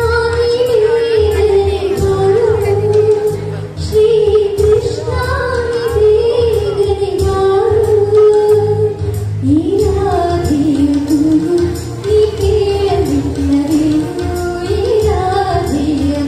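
A woman singing a slow, soulful melody into a microphone, holding long notes that slide between pitches, with a steady low accompaniment underneath.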